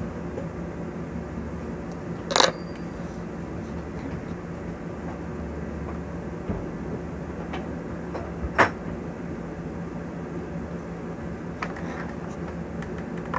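A steady low hum with two sharp knocks, one about two seconds in and one past eight seconds, and a few faint ticks in between, from objects being handled against a tabletop.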